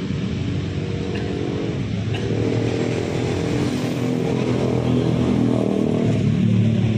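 A motor vehicle engine running close by, a steady hum that grows louder toward the end.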